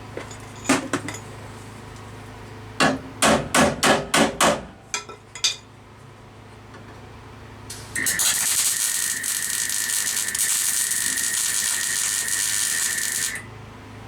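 Hammer striking the car's steel bodywork: a knock, then a quick run of about six blows and two lighter ones. A steady hiss with a high tone in it then starts abruptly, runs for about five seconds and cuts off.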